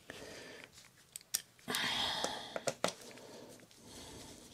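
Small sharp clicks of metal screws and an Allen key being handled while fitting the oil filter cover screws into a motorcycle engine casing, with a brief rustling scrape about two seconds in.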